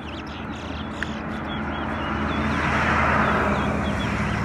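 A vehicle passing by, its noise swelling to a peak partway through and then easing off, over a steady low engine hum. A small bird gives a string of short chirps through it.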